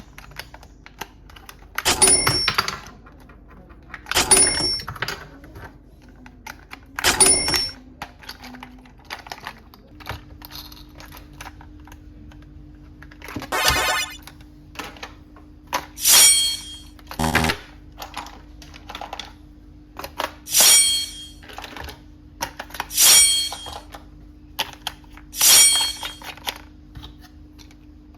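Small plastic clicks and rattles of toys and packaging being handled, broken about every two to three seconds by a short, loud added sound effect with high ringing tones. A faint steady hum comes in about a third of the way through.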